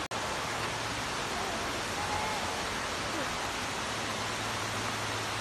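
Steady, even rush of a waterfall cascading down a rock cliff.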